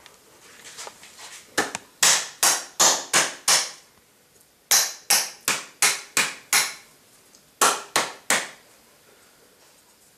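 Kitchen utensil tapping sharply against a dish: quick runs of taps, about two and a half a second, in groups of about five, six and three with short pauses between.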